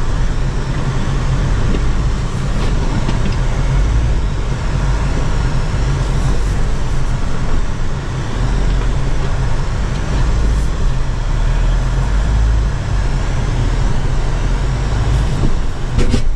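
Cabin sound of a 2024 Chevrolet Colorado ZR2 Bison crawling slowly over rocks on a steep hill climb: a steady deep rumble from its 2.7-litre turbo four-cylinder and tyres working over rock, with a few knocks from the bumps.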